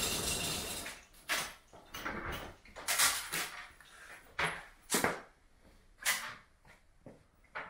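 Chain-operated workshop door being hauled open by hand, its chain and mechanism rattling until it stops about a second in. Then half a dozen separate short knocks and thuds, roughly a second apart.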